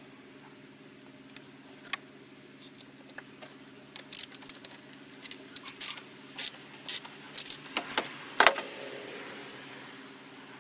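Metal tool clinks: a long spark plug socket on an extension bar knocking against the engine's metal heat shield and plug well as it is worked onto a spark plug, about a dozen sharp, irregular clinks starting about four seconds in, the loudest near the end. A steady low hum sits underneath.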